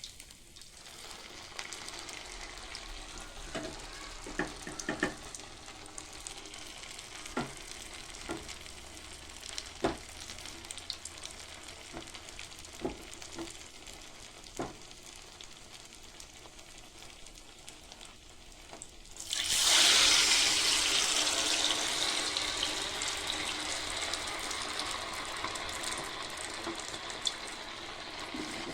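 Cutlets frying in hot oil, a steady sizzle with a few sharp clicks in the first half. About 19 seconds in there is a sudden, much louder burst of sizzling that slowly eases off.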